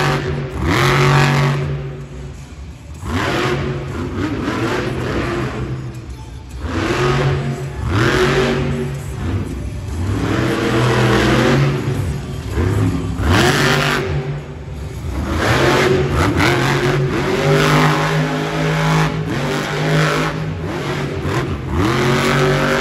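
Monster truck engine revving hard over and over, its pitch surging up and falling back every second or two as the truck spins donuts and drives over crushed cars.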